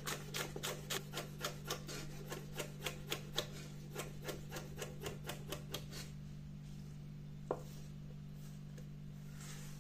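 Chef's knife slicing scallions on a wooden cutting board: quick, even chops about four a second that stop about six seconds in, followed by a single knock near the end.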